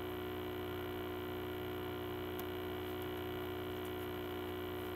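Steady electrical mains hum with several even tones held throughout, and a few faint ticks around the middle.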